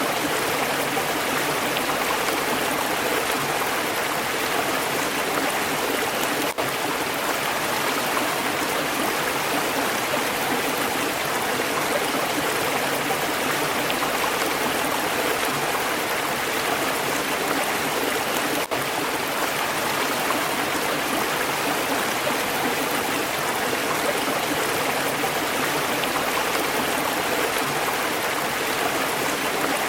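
Stream water flowing steadily, an even rushing with no let-up, briefly dipping in level twice, about six seconds in and again near nineteen seconds.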